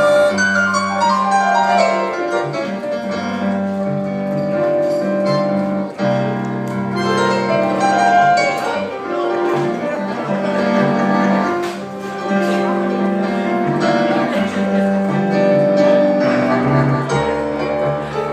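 Live blues band playing an instrumental passage with no vocals, keyboard over a moving bass line.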